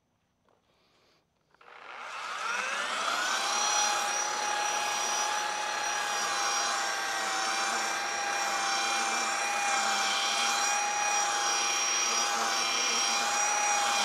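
Electric sander starting up about a second and a half in, its motor whine rising in pitch as it spins up and then running steadily while sanding a black walnut slab.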